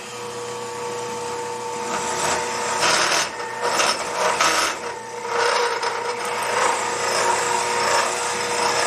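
A lathe runs with a steady motor whine while a drill bit held in the tailstock chuck bores into a spinning burl blank, which the turner believes is walnut. The dry scraping of the cut grows from about two seconds in and comes in uneven surges as the tailstock is fed in.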